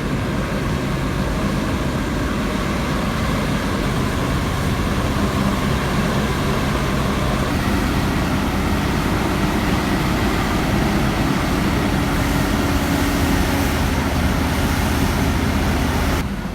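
Heavy truck engine running steadily under load, with a dense rumble of road and mechanical noise that stays at an even level and cuts off sharply near the end.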